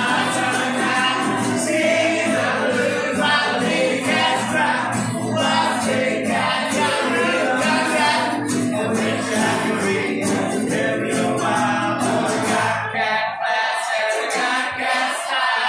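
A live band playing and singing a song, several voices together over stringed instruments. The bass drops out about thirteen seconds in while the singing and higher instruments carry on.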